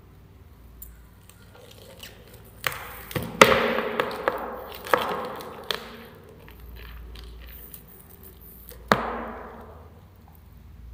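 Sharp knocks, clicks and crackling from a black scorpion and a giant centipede struggling, their hard bodies and legs striking the plastic enclosure. A dense run of knocks comes a few seconds in, then one lone sharp knock near the end.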